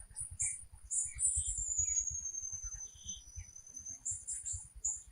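Rainforest ambience: insects keep up a steady high buzz and repeated short chirps, and a long whistle falls slowly in pitch about a second in, over a fast low patter.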